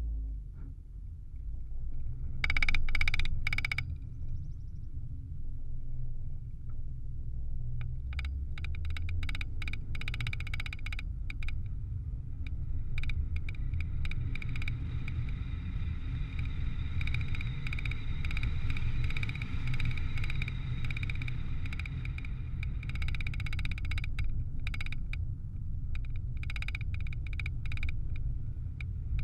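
Low rumble of wind and road noise from travel along a paved lane, with a dense, rapid ticking that comes in briefly a few seconds in and then runs on from about eight seconds in.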